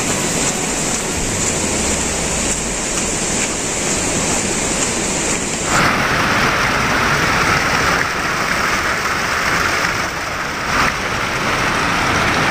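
Steady rushing of water and rain. About six seconds in the sound changes abruptly to the closer splashing of a small cascade running down a rocky bank.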